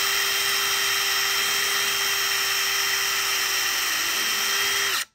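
Power drill running at high speed, boring a pilot hole through a cart deck rail: a steady, unchanging whine that cuts off abruptly about five seconds in.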